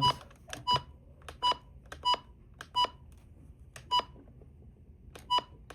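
Button beeps of a Maxx digital weather radio as its keys are pressed: a string of short, high beeps, each with the click of a key, at uneven intervals with a pause of over a second near the end.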